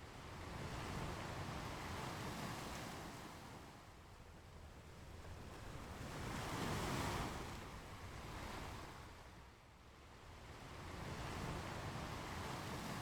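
Ocean waves breaking on a beach, the surf swelling and fading in slow cycles, with the biggest wave about halfway through.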